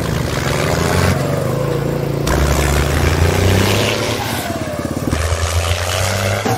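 Small engine of a handmade mini tractor running steadily while it pulls a loaded trailer, its note shifting a couple of times.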